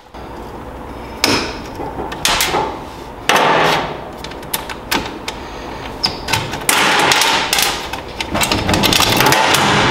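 A 420 roller chain being taken off its sprocket by hand: irregular metal clinking and rattling, with longer loud stretches of rattle about three seconds in and through the last three seconds.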